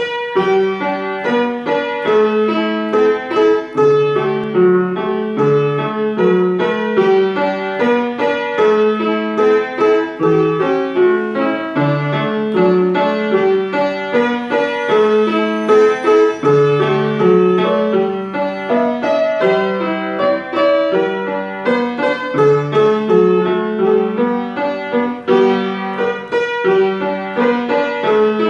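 Piano played with both hands: a simple tune in the upper notes over low bass notes, note after note at a steady even pace.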